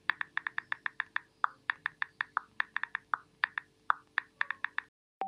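Smartphone touchscreen keyboard clicks as a text message is typed with both thumbs: quick, irregular taps, about six a second with short pauses, over a faint steady low hum. The tapping stops shortly before the end.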